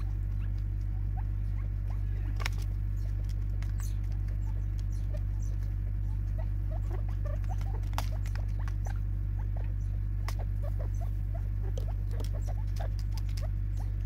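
Francolins pecking seed from a plastic bottle feeder: many small, irregular taps and clicks, a few sharper ones among them, over a steady low hum.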